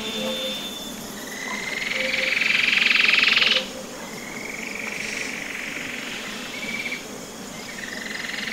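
Calling wildlife: high buzzing trills that swell and rise in pitch. The first and loudest cuts off sharply about three and a half seconds in, a fainter one follows, and another starts near the end, over faint short low croaks.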